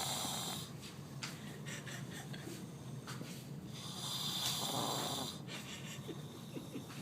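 A man snoring in his sleep: two loud snores about four seconds apart, the first dying away about half a second in, the second swelling up about four seconds in and lasting over a second.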